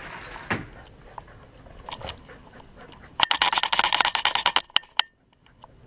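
Rapid, loud crackling and rattling from the GoPro on the harness of a running Siberian husky, rubbing and knocking against the dog as it moves. It comes as a dense run of clicks for about a second and a half midway, then cuts off suddenly.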